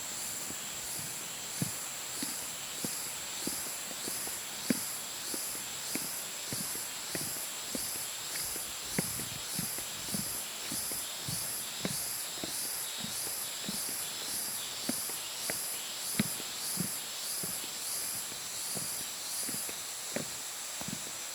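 Footsteps walking along a trail, a soft thump roughly every half second, over insects chirring in a steady high pulse about twice a second.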